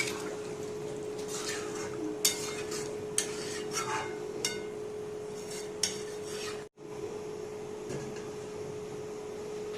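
Metal spoon stirring and scraping in a cooking pot, with a run of clinks against the metal that stops a little over halfway through. A steady hum runs underneath.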